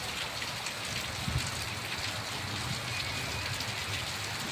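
Heavy rain pouring down steadily, with scattered drops ticking on surfaces.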